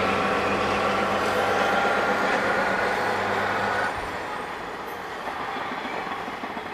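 JNR DD13 diesel-hydraulic locomotive running past, a steady engine drone with a low hum and a higher whine; about four seconds in the hum and whine drop away and a quieter rumble goes on.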